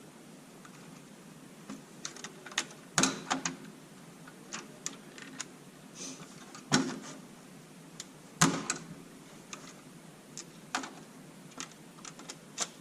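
Irregular clicks, taps and clunks of metal supercharger parts and tools being handled and set down during disassembly, with three louder knocks spread through.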